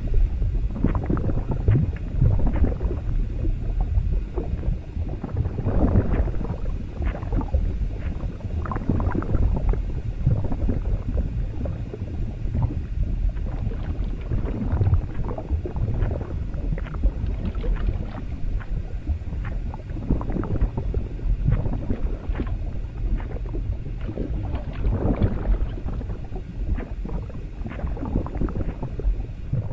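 Stomach gurgling and sloshing-liquid sound effects over a continuous low rumble, with frequent short gurgles.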